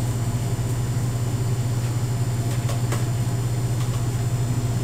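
A steady low hum, like a machine or ventilation drone, with a few faint clicks about two and a half to three seconds in.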